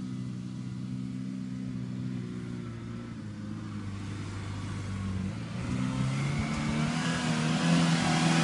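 Toyota Hilux pickup's engine running as the truck drives through deep sand toward the listener. The engine note is steady at first, then shifts about halfway through and grows louder as the truck comes closer, with a rising hiss from the tyres and sand.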